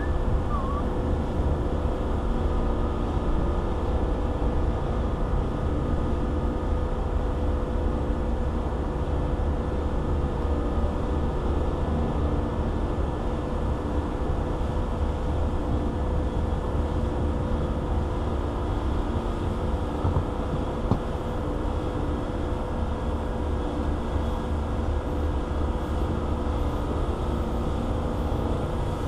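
A steady, low mechanical hum with a constant tone that never changes, like a motor or engine running at one speed.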